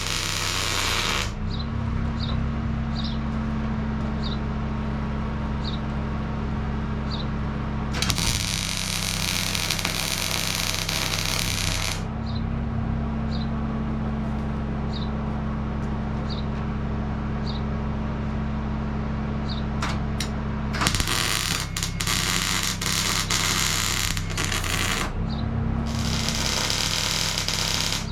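Electric arc welding on steel plate: several spells of steady frying crackle, each a few seconds long, with a steady low hum between the welds.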